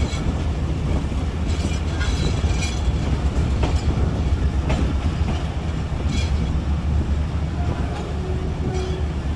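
A passenger train running on the track, heard from a coach: a steady heavy low rumble with the wheels clicking irregularly over rail joints and points, about seven clicks.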